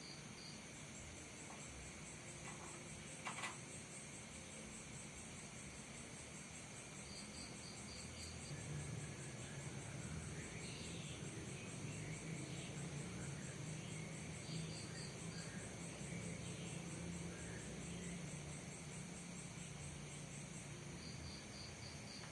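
Crickets and other insects trilling: a fast, steady high trill throughout, with short groups of chirps every several seconds. A sharp click sounds about three seconds in, and a low steady hum comes in about eight seconds in.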